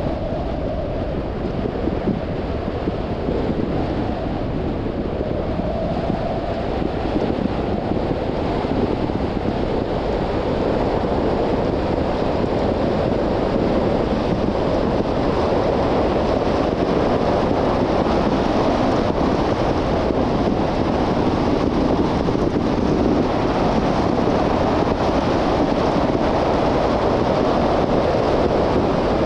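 Steady road noise of a moving car: tyre roar and wind rush, growing a little louder about ten seconds in.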